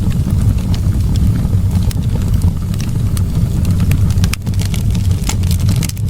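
Wood fire burning in a fireplace: a steady low rumble of the flames with frequent small, sharp crackles and pops from the burning wood.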